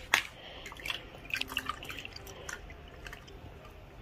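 Water dripping and lightly splashing in a small plastic bowl as a soft baby finger brush is dipped and handled. A sharp click comes just after the start, then a scatter of small drips and ticks.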